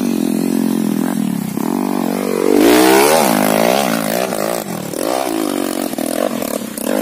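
Dirt trail bike engine revving hard on a steep dirt hill climb, its pitch rising and falling with the throttle. It is loudest about three seconds in.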